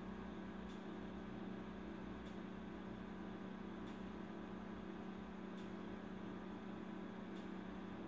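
Steady low electrical hum, with a faint tick about every second and a half.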